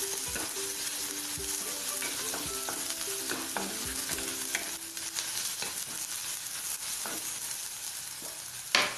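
Chopped onion, green chillies and ginger-garlic paste sizzling in hot oil in a pan while being stirred, with scattered clicks of the utensil against the pan and one loud knock near the end.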